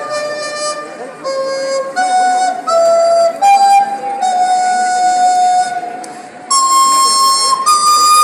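A flute playing a slow melody of held notes, each lasting from about half a second to a second and a half, with a jump to a higher register about six and a half seconds in.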